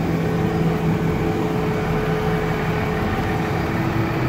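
Fire truck's diesel engine idling, a steady low hum with fixed tones that does not change.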